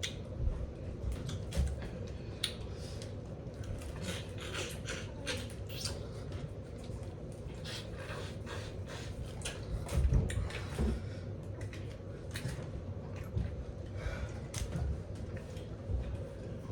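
A person sniffing and breathing hard in short, frequent strokes through the burn of an extremely hot chip. There is a louder low thump about ten seconds in.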